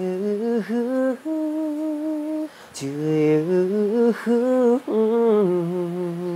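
A person humming a gentle tune without words: a run of held and sliding notes, with a short break about two and a half seconds in.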